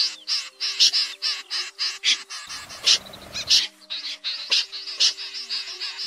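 Snipe calls played as a lure: a rapid run of short, sharp calls, about four to five a second. Low held notes of background music sound underneath, with a brief low rumble about halfway through.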